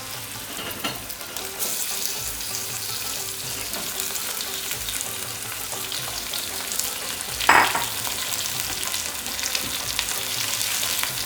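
Boneless lamb pieces sizzling in hot mustard oil with browned onions and whole spices: a steady frying hiss that grows a little louder about a second and a half in. A single sharp knock, the loudest sound, comes about three-quarters of the way through.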